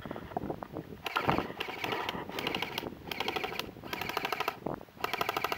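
Airsoft guns firing on full auto: several short bursts of rapid, evenly spaced clicks, about one burst a second.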